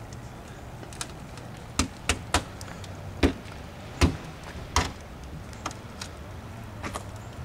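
Footsteps crunching through ice-glazed snow: a string of sharp, irregular cracks, some in quick succession, over a steady low hum.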